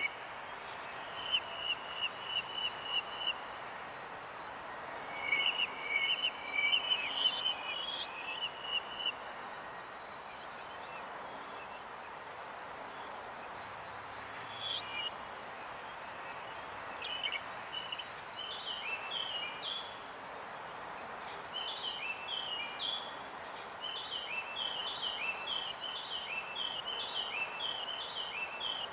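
A steady high, fast-pulsing insect trill, like crickets, over a broad hiss. Groups of short chirps come and go over it and grow thicker toward the end.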